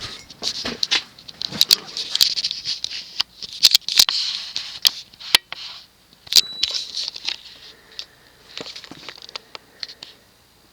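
Emerson Petal ceiling fan coasting down after being switched off: an airy whoosh that fades away over about ten seconds, with many irregular light ticks and clicks that thin out as it slows.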